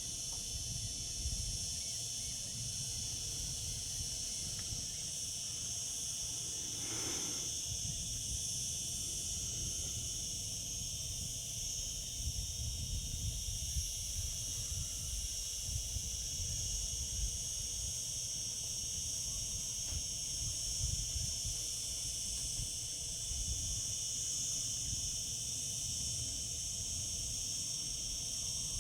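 Chorus of cicadas singing: a steady, unbroken high-pitched buzz that holds at the same level throughout.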